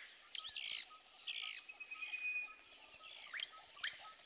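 Bush ambience: a steady, high, fast-pulsing insect trill, breaking off briefly about two and a half seconds in, with several short falling whistled bird calls over it.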